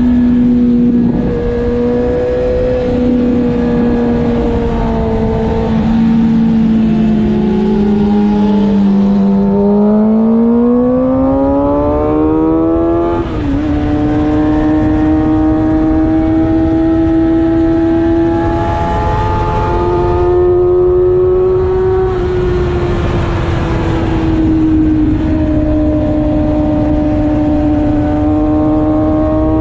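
Motorcycle engine heard onboard at track speed over wind rushing past the microphone. The engine note sags slowly, climbs steeply under acceleration from about ten seconds in, dips sharply once at a gear change around thirteen seconds, then holds high and fairly level.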